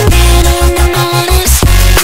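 Loud electronic background music with a deep bass line, held synth notes and a steady drum beat.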